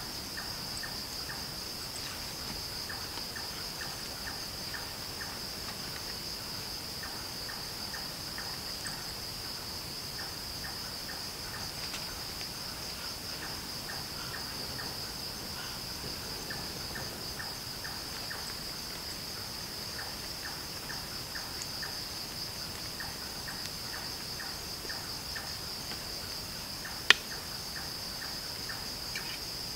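Crickets trilling steadily in a high, unbroken chorus, with a lower, fast train of short repeated chirps beneath it. A single sharp click stands out near the end.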